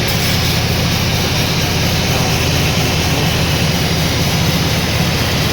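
Sawmill machinery running steadily: a loud, even mechanical drone with a low hum.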